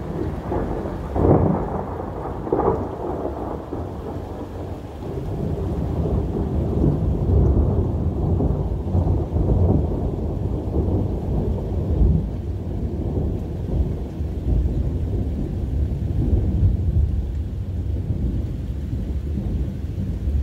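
Thunder during a heavy thunderstorm: two sharp cracks about one and two and a half seconds in, then a long low rumble that builds and rolls on, with steady rain underneath.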